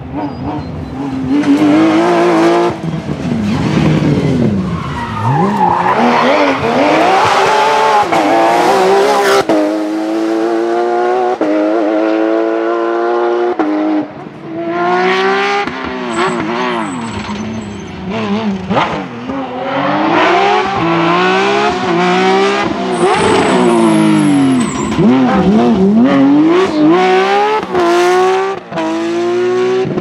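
Porsche 911 rally cars' flat-six engines at high revs, climbing through the gears with quick upshifts and passing close by, the pitch swooping down as each goes past. There is a brief drop-out about halfway through, and a second car follows the same pattern.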